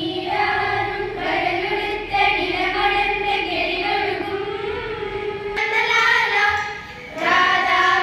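A group of schoolgirls singing together in chorus on long held notes, with a short break about seven seconds in before the singing starts again.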